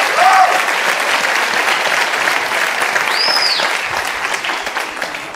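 Studio audience applauding, with a whistle rising and falling about three seconds in; the applause fades away near the end.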